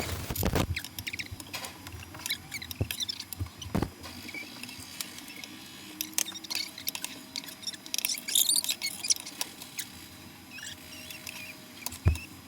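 Irregular light clicks and scrapes of a spatula working a pancake in a frying pan.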